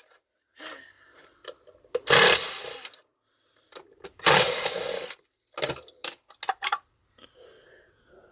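A power tool runs in two short bursts of about a second each during disassembly of a vacuum cleaner motor, followed by a quick run of small clicks and knocks of parts being handled.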